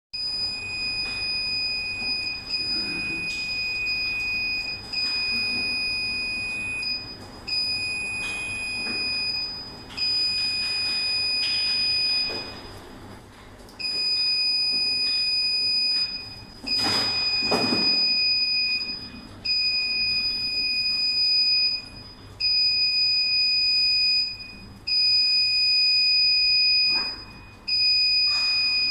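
Built-in buzzer of a CNB512P wave-to-open touchless exit button sounding a steady high beep each time a hand is waved past its sensor. About a dozen beeps of roughly two seconds each come with short gaps between them, and there is a brief rush of noise near the middle. The wet IP65 waterproof button is still triggering after being soaked.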